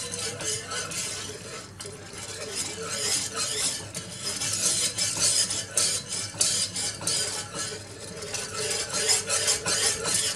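Wire whisk stirring milk and sugar in a non-stick saucepan: a quick, continuous stream of scrapes and clicks as the whisk wires rub and tap against the bottom and sides of the pan.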